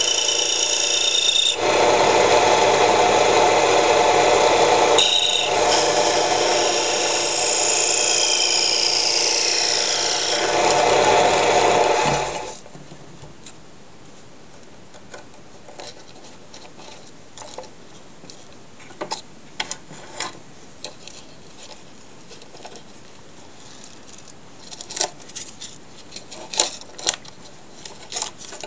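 Turning tool cutting a spinning wooden blank on a homemade wood lathe: a loud scraping hiss with shifting pitch that stops suddenly about twelve seconds in. Afterwards only small scattered clicks and knocks as the workpiece is handled.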